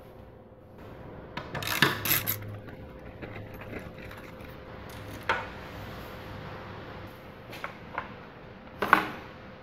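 Clinks and clatters of hand tools and metal parts being handled while a motorcycle is stripped down. There is a rattling cluster about two seconds in, a single knock midway, two light clicks, and a sharp clank near the end, over a faint steady hum.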